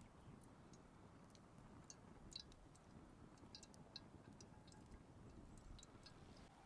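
Near silence with faint, scattered crackles from a wood campfire over a low background hush.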